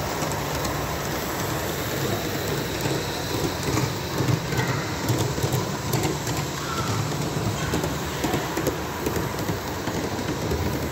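Live steam model locomotive running on its track, giving off a steady hiss of steam.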